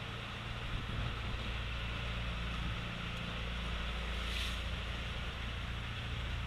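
A fishing boat's engine runs with a steady low hum under a constant rush of wind and water. A short hiss comes about four seconds in.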